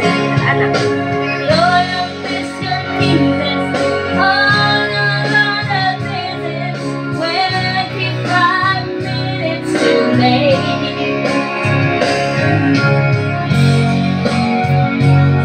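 A woman singing karaoke into a handheld microphone over an instrumental backing track, holding a long note about four seconds in.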